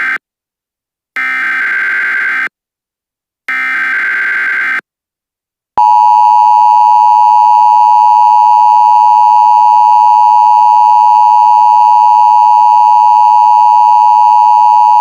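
Emergency Alert System SAME header: the tail of one burst and then two more roughly one-second bursts of screechy digital data tones, evenly spaced. About six seconds in, the steady two-tone EAS attention signal starts and holds unbroken and loud.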